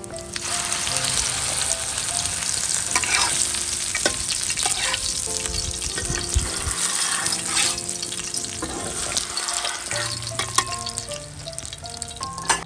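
Chapli kababs sizzling as they fry in melted fat on a large round metal pan; the sizzle jumps up just after the start as a kabab is laid into the hot fat. A metal spatula knocks and scrapes against the pan a few times.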